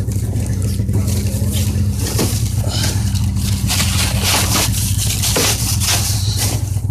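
A motor vehicle's engine runs steadily, with irregular bursts of crunching, rushing noise over it.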